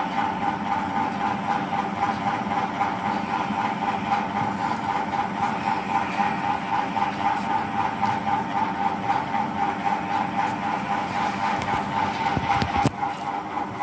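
Steady mechanical hum holding several even tones. A sharp knock of the phone being handled comes near the end.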